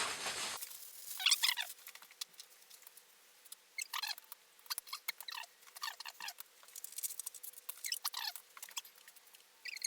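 Paintbrush worked over wood, laying on paint in short strokes that make scattered scratchy, squeaky sounds.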